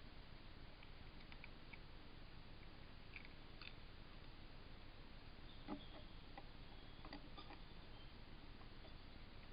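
Near silence from a wildlife trail camera's microphone: a steady faint hiss with a few soft clicks, one a little louder about halfway through, and brief faint high chirps.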